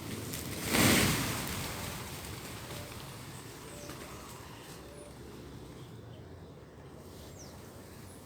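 A sudden whoosh about a second in that fades away over a second or so, followed by a few faint, short, high chirps from small birds now and then over steady outdoor background noise.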